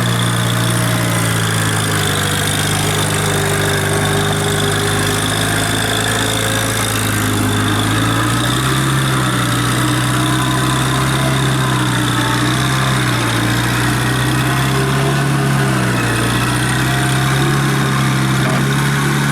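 John Deere 90 skid steer engine running steadily near idle, its note dipping and rising slightly a few times.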